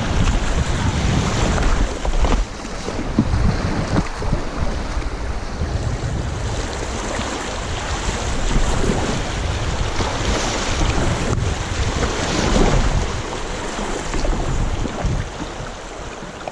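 Wind buffeting an action-camera microphone on a kayak, a steady rumbling rush mixed with water noise around the hull.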